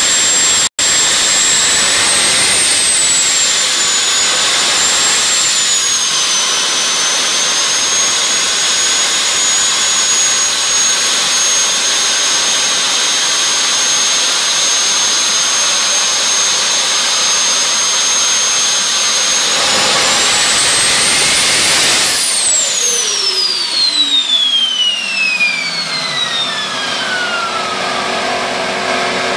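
Homemade gas turbine engine running with a steady high-pitched whine. About 20 seconds in it spools up, then the whine falls steadily in pitch as the engine spools down.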